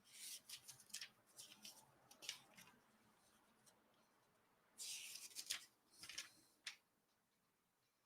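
Near silence broken by faint, irregular scratchy rustling and light clicks in two short spells: handling noise.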